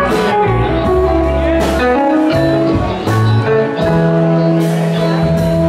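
Live rock band playing: electric guitars over bass and drums, with a cymbal struck about every second and a half.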